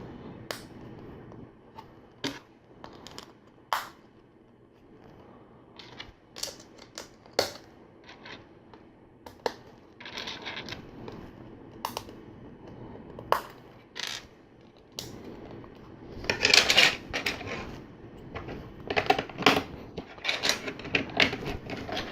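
LEGO plates and tiles being handled and snapped together: scattered sharp plastic clicks, with a denser run of clatter in the last few seconds.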